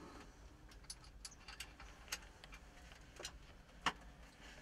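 Scattered light clicks and taps from handling, about a dozen in all, with the loudest one just before the end.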